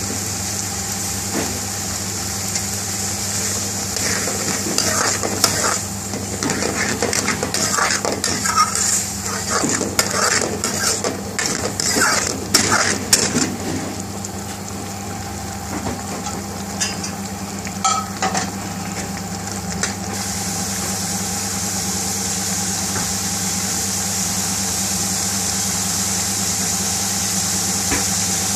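Metal ladle stirring and scraping in a metal pan of simmering curry sauce, with clicks and scrapes from about four to fourteen seconds in and a few more near eighteen seconds. Under it the sauce sizzles and bubbles over a steady low hum.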